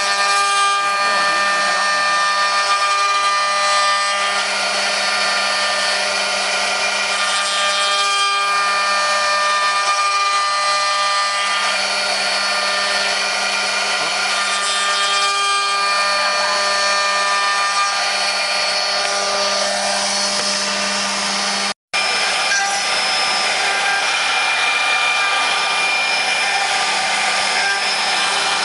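Multi-spindle CNC wood router running, its spindles whining steadily at high speed as the router bits cut into wooden blanks turning on rotary axes. The sound drops out for an instant about three-quarters of the way through, then the same kind of spindle-and-cutting sound carries on.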